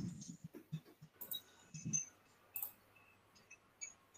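Faint, scattered clicks and taps picked up on an open video-call microphone, a few irregular strokes with brief silences between them.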